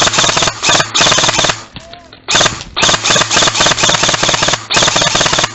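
Airsoft gun firing close by in long strings of rapid shots. It breaks off for about half a second a little after one and a half seconds in, then fires again with a brief break near the end.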